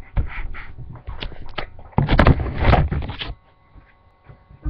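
Rustling, rubbing and bumping noise close to the microphone as someone moves against the webcam. The loudest stretch comes about two seconds in, and it dies down near the end.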